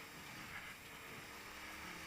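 Faint, steady engine and road noise inside a Holden VP Commodore rally car driving a slippery stage.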